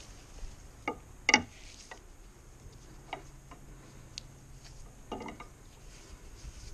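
Irregular clicks and knocks of a tie-down strap's metal buckle being handled and fastened, a handful of separate clicks with the loudest about a second in and a short cluster near the end.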